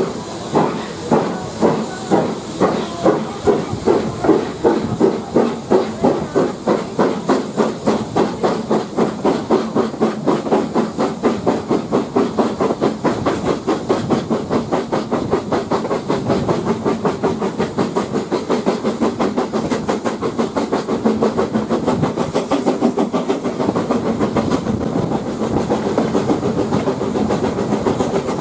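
Steam locomotive exhaust beats from BR Standard 9F no. 92214, a two-cylinder 2-10-0, pulling away from a station. The chuffs start at about two a second and quicken steadily as the train gathers speed, until they run together into a continuous beat near the end.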